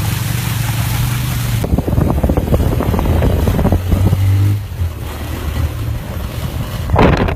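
A small motorcycle engine runs steadily while riding through a shallow river and onto a rough dirt trail. Water and wind noise come first, then a couple of seconds of clattering knocks from the bumpy ride, and the engine pitch rises about four seconds in.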